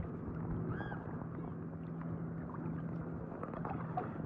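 Light rain falling on lake water, with small drips and splashes, over a steady low hum.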